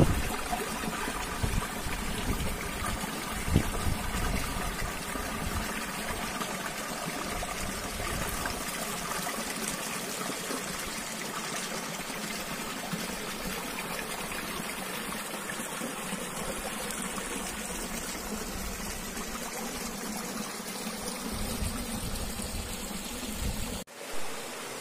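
Small mountain stream running over rocks, water trickling and splashing steadily through little cascades into a shallow pool. A few low knocks on the microphone in the first few seconds, and the sound cuts out briefly near the end.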